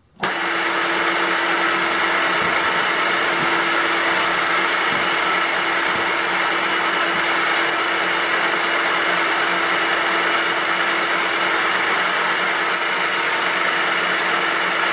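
Milling machine switched on: its electric motor and spindle gearbox start abruptly and run at a steady, loud level, a constant hum over dense gear noise.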